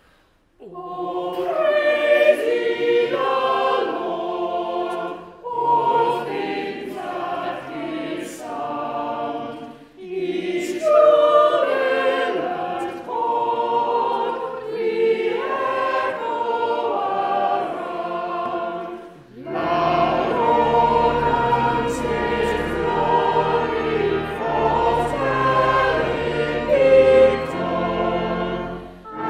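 Choir singing a hymn, phrase by phrase with short breaks between lines. Deep bass notes join about two-thirds of the way through.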